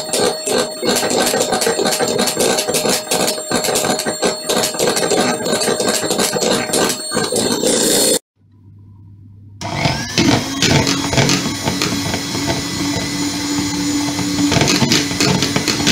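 Electric hand mixer running, its beaters whisking eggs and caster sugar in a plastic bowl. The sound drops out briefly a little past the middle, then the mixer runs again with a steadier hum.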